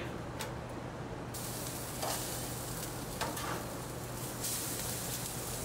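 Steak and swordfish sizzling on a hot gas-grill grate as they are moved across it with metal tongs. The hiss starts suddenly about a second in, when the meat goes down on the hotter side, with a few clicks of the tongs on the grate.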